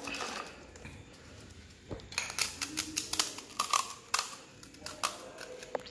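Crisp fried pani puri shells cracking as fingertips punch holes in their tops, with light clatter of the shells being handled. A quick, irregular run of small sharp cracks and clicks begins about two seconds in.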